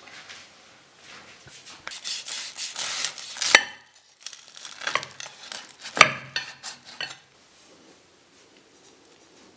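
Large kitchen knife sawing down through a fried chicken burger, the crisp breaded coating and bun crunching and crackling, with two sharp knocks of the blade on the plate, one near the middle and one a couple of seconds later.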